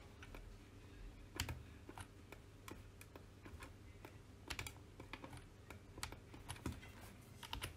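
Faint, irregular clicks of a computer keyboard and mouse as 3D software is worked, over a faint low hum.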